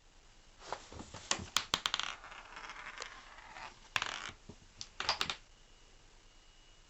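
A cat scrabbling and pawing under a carpet: bursts of scratchy scuffling with sharp clicks, in groups about a second apart, dying down after about five seconds.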